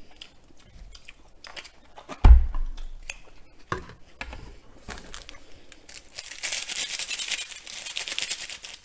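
Scattered light clicks of chopsticks and plastic food containers, and one heavy thump a little over two seconds in. From about six seconds in, a small plastic packet is crinkled and torn open, a dense crackling that runs on.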